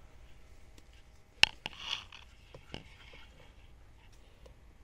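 Black electrical tape being handled and pulled off its roll on a truck's wiring harness: a sharp click about a second and a half in, then a short ripping sound, with a few lighter clicks afterwards.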